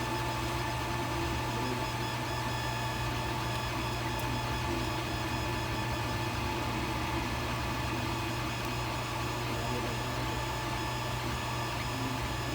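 Creality Ender 3 Pro 3D printer running: a steady mechanical hum of its fans and motors with a few constant whining tones.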